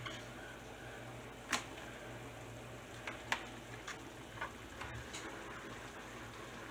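Scattered light clicks and taps, about eight spread unevenly, of a plastic utensil against a styrofoam takeout container as vegetables are picked out of it, over a faint low hum.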